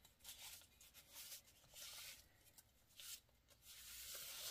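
Faint scraping strokes of a palette knife dragging acrylic paint across paper, in short irregular passes.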